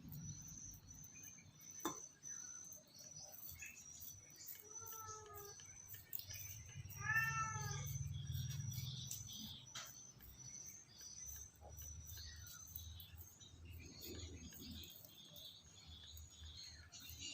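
A cat meowing twice, short arching calls about four and seven seconds in, over the steady high chirping of crickets.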